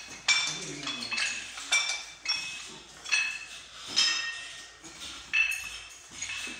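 Iron weight plates and dumbbells clinking against each other as they are handled, with sharp metallic strikes about one or two a second, each ringing briefly.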